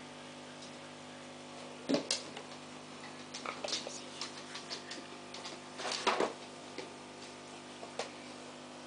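Steady low hum with irregular sharp clicks and taps, the loudest about two seconds in and about six seconds in.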